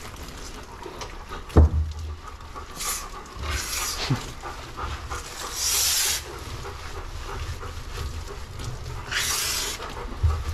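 Shampoo lathered by hand into a wet Bernese mountain dog's coat, with several short hissing squirts from a squeezed plastic shampoo bottle and two low thumps, one about a second and a half in and one near the end.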